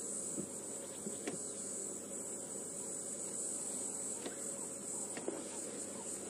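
Steady high-pitched chirring of insects in the bush, with a few faint clicks or snaps now and then.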